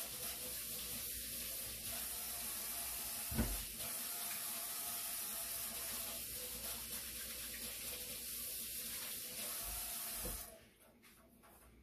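Kitchen sink tap running in a steady stream while hands are washed under it, with one knock about three and a half seconds in. The water is shut off about ten and a half seconds in.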